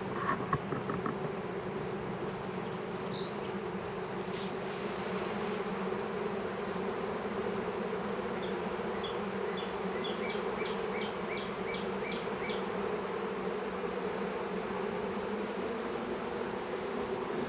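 A honey bee swarm in flight, thousands of bees humming steadily overhead as they mill about and try to cluster on a tree limb.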